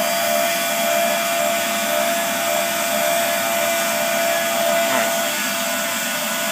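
Electric air blower on a forge running steadily: a rushing whir with a steady motor whine.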